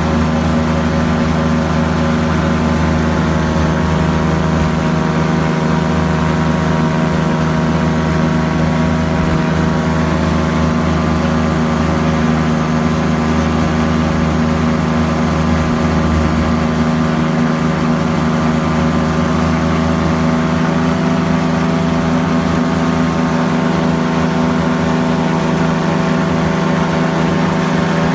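Ultralight aircraft's engine and propeller running steadily in cruising flight: a loud, even drone made of several steady tones that does not change pitch.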